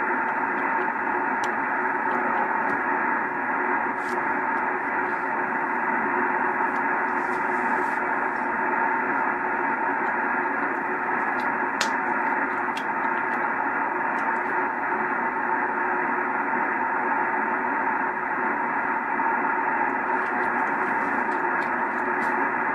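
Yaesu FT-2000D transceiver's speaker giving steady static hiss on the 10-meter single-sideband phone band, the sound narrow and muffled with a faint steady whistle in it. The station being listened for has faded out, leaving only band noise.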